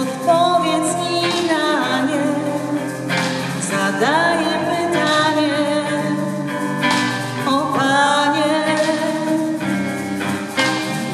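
Two women singing a song together, backed by electric guitar and bass guitar.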